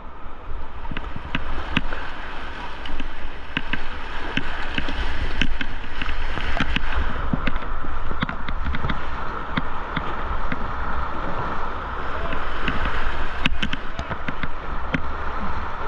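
High-running river water rushing and splashing around a paddled canoe, with many short sharp splashes and knocks all through. Wind rumbles on the microphone underneath.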